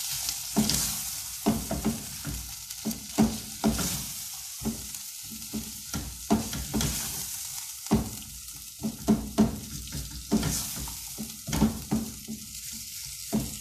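Wooden spoon stirring mashed potatoes and ground spices frying in hot oil in a metal pot: a steady sizzle under irregular knocks and scrapes of the spoon against the pot, about one or two a second, as the masala is fried (bhuna).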